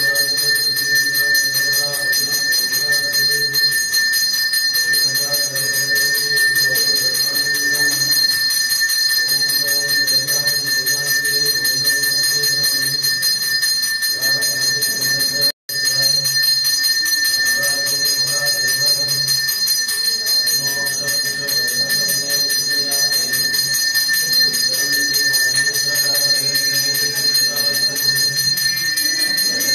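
Temple puja bell rung continuously during the abhishekam, the ritual pouring over the deity, a steady high ringing that breaks off for an instant about halfway. Beneath it runs a lower sound in repeating phrases.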